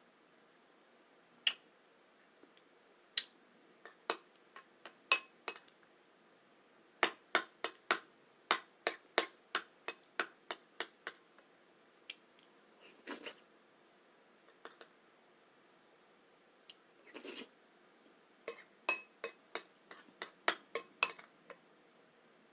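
A spoon tapping and clinking against a bowl of oatmeal. The taps are sharp and irregular, each with a brief ring, and come in quick clusters. Two softer, longer noises come in the quiet stretch between the clusters.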